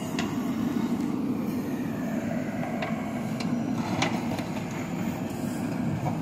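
JCB 3DX backhoe loader's diesel engine running steadily under load while the backhoe arm digs, with a few sharp knocks, the strongest about four seconds in.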